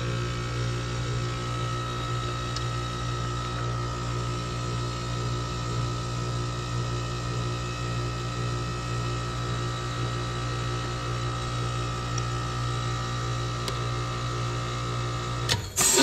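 Heat pump outdoor unit's compressor running with a steady electrical hum, its outdoor fan disconnected so the coil frosts up. Near the end the hum breaks off suddenly and a rush of hissing begins, the sound of the reversing valve shifting as the unit goes into defrost.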